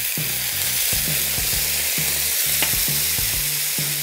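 Semi-dried oysters sizzling hard in hot oil in a frying pan as Shaoxing wine is splashed in, with a wooden spatula stirring them near the end. The hiss is loud and steady.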